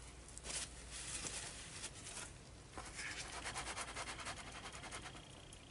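Gloved hands handling and turning a soap mold on a round wooden board, with scraping and rustling in the first couple of seconds. From about three seconds in there is a dense run of fine rapid ticking as the mold is turned.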